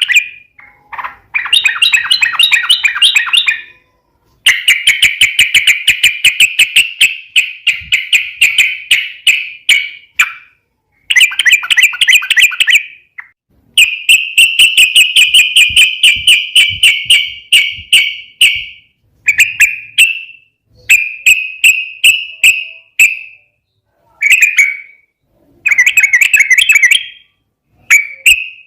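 Yellow-vented bulbul (trucukan) singing loudly in fast, rapid-fire chattering phrases. Each burst lasts one to five seconds, with brief pauses between.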